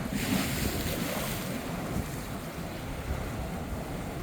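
Sea waves washing onto the beach, with wind rumbling on the microphone.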